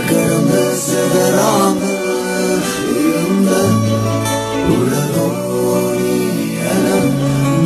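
A song playing: singing over guitar accompaniment.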